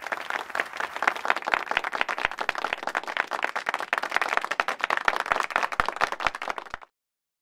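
Audience applauding, many hands clapping at once, cutting off suddenly near the end.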